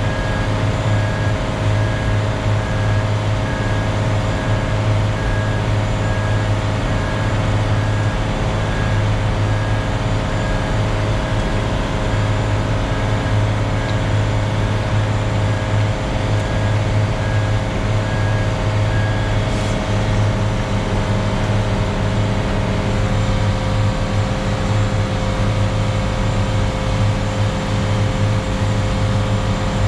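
Concrete mixer truck's diesel engine running steadily. A repeating beep, about one a second, sounds over it and stops about two-thirds of the way through.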